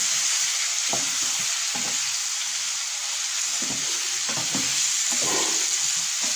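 Spice-marinated chicken pieces sizzling as they fry in oil in a non-stick pan, with a spatula scraping and turning them every second or so.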